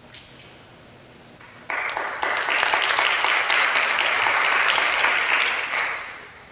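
Audience applause: a few scattered claps at first, then a burst of clapping about two seconds in that dies away near the end.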